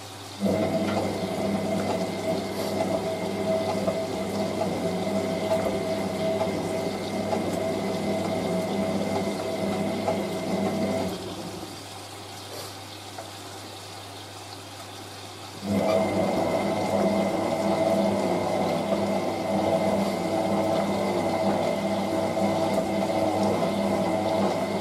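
Hotpoint 9530W front-loading washing machine tumbling its wash load: the drum motor runs with a steady whine for about ten seconds, stops for about four seconds while the water and towels settle quieter, then starts up again. The owner suspects the motor's carbon brushes are wearing.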